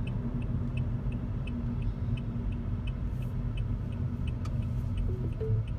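Steady low road and engine rumble inside a moving car's cabin, with the turn-signal indicator ticking evenly about three times a second.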